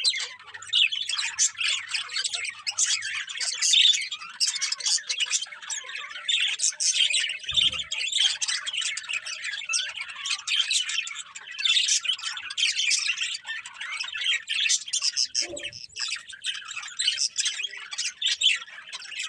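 Many small birds chirping at once in a dense, unbroken chatter of short high calls. Two brief low thumps come through, about seven and a half seconds in and again near fifteen and a half seconds.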